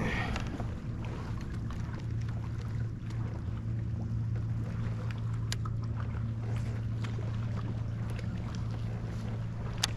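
Kayak out on the water: a steady wash of water and wind noise with a constant low hum, and a couple of sharp clicks, the last just before the end.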